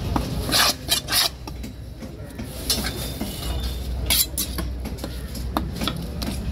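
Fish knife chopping through fish flesh onto a wooden chopping block: a quick run of sharp chops about a second in, then single chops every second or so, over a steady low rumble.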